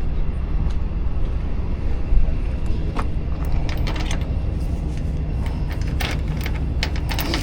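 A heavy engine idles with a steady low rumble. From about three seconds in there are scattered sharp clicks and knocks.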